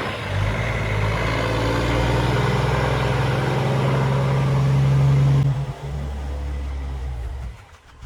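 Heavy diesel engine running under load, its pitch edging up for about five seconds, then dropping and dying away near the end.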